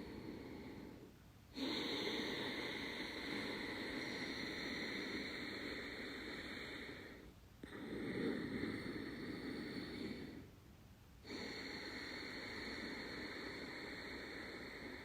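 Ujjayi (ocean) breath: slow breathing through a slightly narrowed throat, with a soft, snore-like hiss. An inhale ends about a second in. Then come a long exhale of about five seconds, a shorter inhale of about three seconds and another long exhale, with brief pauses between.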